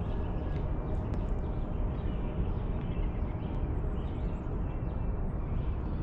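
Steady low outdoor rumble, with a few faint, short high chirps that sound like small birds.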